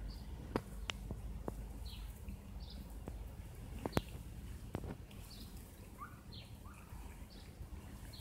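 Small birds chirping: short high chirps every half second to a second. A few sharp clicks stand out, the loudest about half a second and four seconds in, over a low steady background noise.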